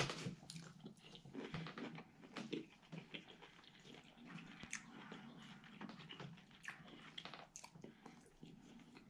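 A person chewing a mouthful of microwaved beef and broccoli, faint, with many small scattered clicks.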